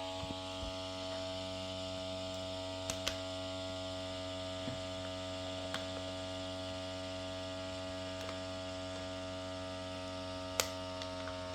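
Handheld vacuum sealer's small electric pump running steadily, drawing the air out of a reusable vacuum bag through its valve, with a few light clicks.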